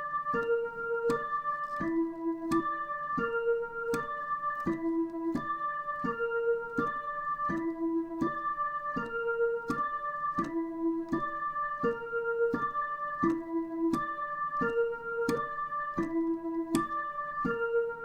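Electronic keyboard playing a repeating broken-chord figure of quick notes, about three a second, an arpeggio imitating a Dutch ambulance siren.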